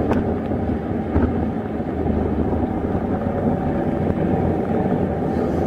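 Steady road and wind noise of a car driving at highway speed, heard from inside the cabin.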